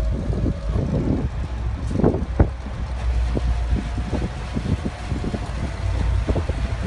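Gusty wind buffeting the microphone, an irregular flutter and crackle over a steady low rumble, with a faint steady whine running through it.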